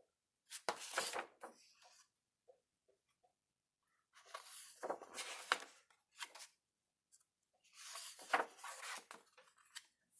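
Pages of a hardcover picture book being turned by hand: paper rustling and sliding in three bursts.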